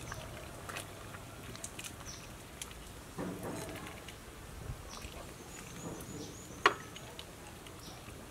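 Scattered light clicks and knocks of a wooden spoon against a ceramic bowl as food is stirred, the sharpest click about two-thirds of the way through.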